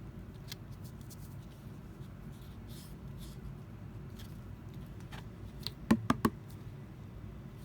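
Hands handling plastic parts: scattered light taps and rustles, then three quick sharp clicks about six seconds in, over a steady low hum.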